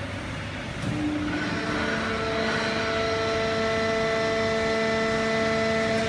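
Hydraulic baling press running: a steady hum from its electric motor and hydraulic pump with a held whine above it. It gets louder after a knock about a second in.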